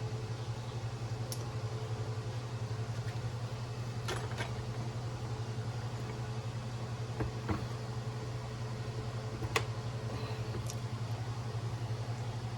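Steady low background hum, with a few light clicks and taps of small parts and tools being handled during assembly work.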